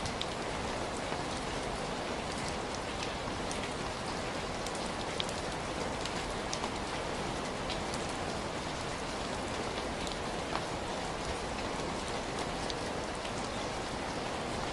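Heavy rain falling steadily, a dense even hiss with many individual drops pattering and ticking on a surface.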